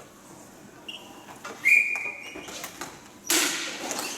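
Referee's whistle in a ball hockey game: a short blast about a second in, then a longer, louder steady blast. A sudden loud noisy burst follows near the end.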